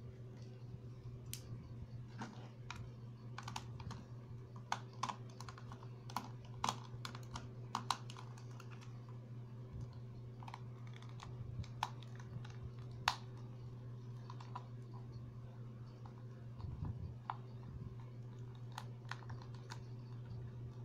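Light, irregular clicks and taps of a small precision screwdriver and its bits against the plastic shell of an A4Tech N-400 computer mouse as the screws on its underside are backed out, over a steady low hum.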